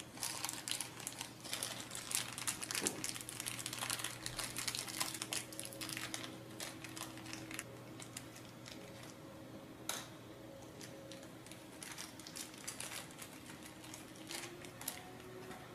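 Small clear plastic parts bag crinkling as fingers work a tiny screw out of it, busiest over the first half, then quieter, with a single click about ten seconds in.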